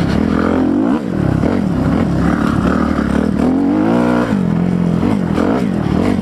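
Kawasaki KLX300R dirt bike's single-cylinder four-stroke engine under way on a trail, its pitch rising and falling repeatedly with the throttle, with one longer climb a little past the middle before it drops back.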